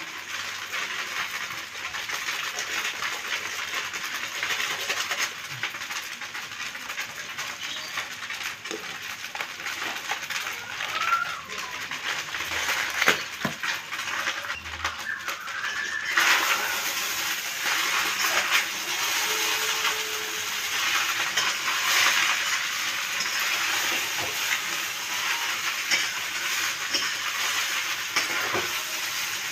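Rice vermicelli sizzling as it fries in oil in a Teflon pan over a gas flame, with a few sharp clicks partway through. The sizzling grows louder a little past the middle.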